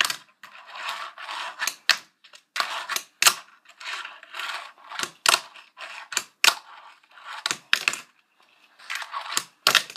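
A 33.5 mm Broken Knuckle fingerboard with Tic-Tac trucks and green bearing wheels doing tricks on a tabletop: irregular sharp clacks as the deck and trucks land and pop on the table, with short stretches of the wheels rolling between them.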